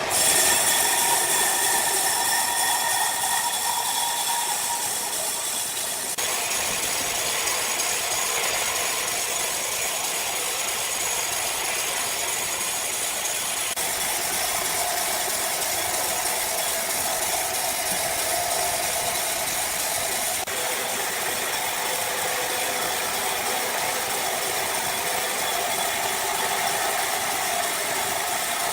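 Sawmill machinery running, a steady mechanical rattle and hiss from the saw cutting wood.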